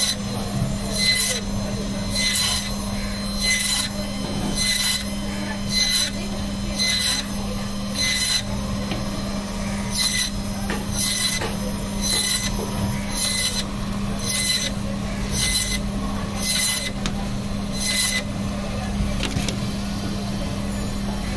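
Electric band saw running with a steady hum while its blade cuts through a fish fillet and backbone, giving a short rasping scrape about once a second as each steak is sliced off.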